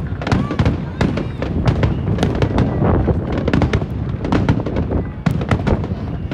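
Fireworks display: a dense, continuous barrage of sharp bangs and crackling bursts, several a second, over a low rumble.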